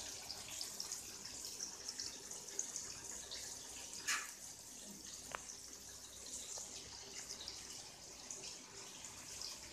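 Marinated fish pieces deep-frying in a pan of hot oil: a steady crackling sizzle. A short clatter about four seconds in and a sharp click about a second later stand out over it.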